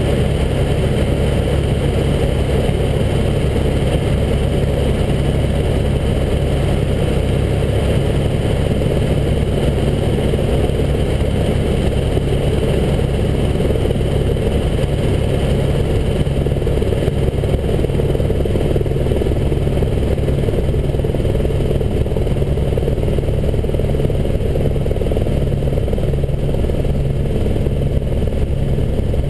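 Helicopter engine and rotor noise heard from inside the cabin: a loud, steady running sound with a low hum.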